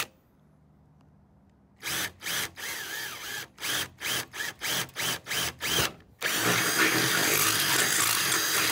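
Cordless drill with a twist bit drilling a hole through a car's sheet-metal fender. It starts about two seconds in with a run of about ten short trigger bursts, then runs steadily from about six seconds in as the bit cuts through.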